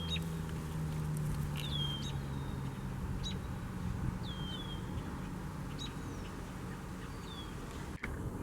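Federal Signal 2001-SRN electromechanical siren winding down after its test: a low tone that slowly falls in pitch and fades out over the first few seconds. A bird repeats short, sharp downward-slurred chirps throughout.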